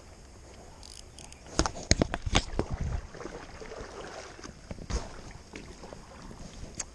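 Water splashing and sharp knocks as someone wades through a shallow creek in waders, with a burst of knocks and splashes about two seconds in and a few single knocks later.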